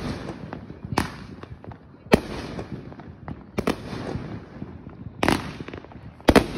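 Aerial firework shells bursting overhead: a series of loud bangs about one to one and a half seconds apart, each trailing off in a rumbling echo, with fainter pops between.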